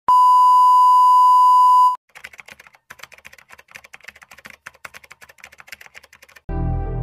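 A loud, steady 1 kHz electronic beep tone lasting about two seconds and cutting off suddenly, followed by faint rapid clicking like typing on a keyboard. Music with a deep bass comes in near the end.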